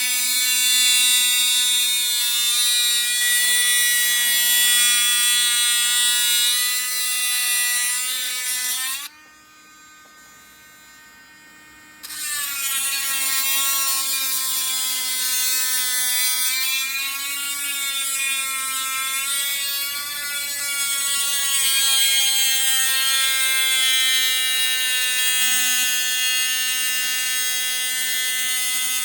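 Dremel Stylo+ cordless rotary tool with a steel tile-cutting bit whining steadily as it drills into a thick, tough seashell, its pitch wavering slightly under hand pressure. It stops about nine seconds in for about three seconds, then starts again.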